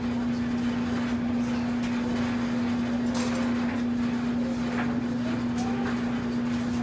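Steady electric motor hum on one constant low note over an even hiss, with faint clicks about three and five seconds in.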